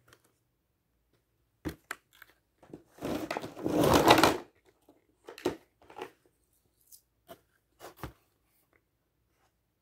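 Toy packaging being handled: a loud crinkling rustle of a plastic bag about three seconds in, lasting about a second and a half, among scattered light knocks and rustles.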